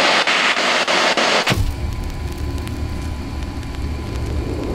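Spirit box sweeping through radio stations: hissing static chopped by quick clicks about five times a second. About a second and a half in it cuts off to a quieter low rumble with a faint steady hum.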